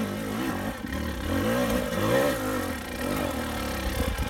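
KTM dirt bike engine revving up and down in repeated throttle bursts while it picks its way up a rocky trail climb.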